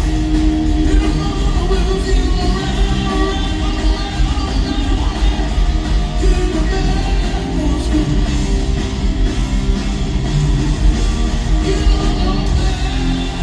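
Live rock band playing loudly: electric guitar, bass and drums.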